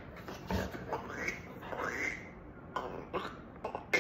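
A yellow Labrador sniffing and breathing in short bursts close to the microphone as it noses at a rubber treat toy, about half a dozen separate puffs.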